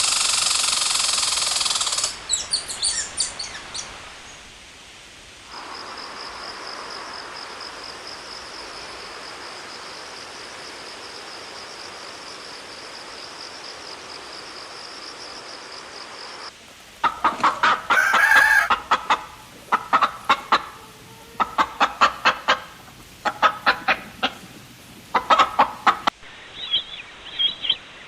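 A run of separate animal recordings: a loud, noisy call at the start that fades within a few seconds, then a steady high trill lasting about ten seconds. The second half holds chickens clucking in quick repeated notes, with one longer, louder call among them.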